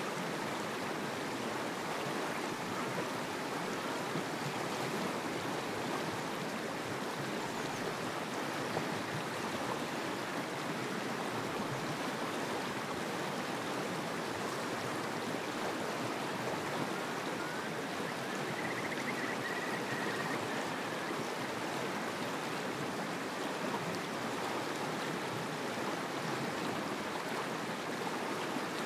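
Steady rushing noise of rippling estuary water, with wind on the microphone. A faint, brief high whine rises about two-thirds of the way through.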